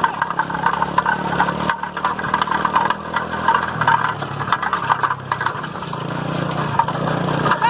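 A small engine running steadily, with a rattling clatter over it.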